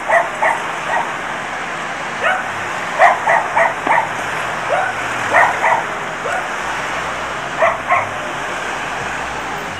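A dog barking in short runs of two to four barks a few seconds apart, over a steady hiss of background noise.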